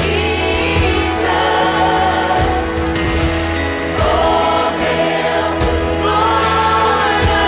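Choir singing a Christian worship song over a backing band with steady bass and drum hits.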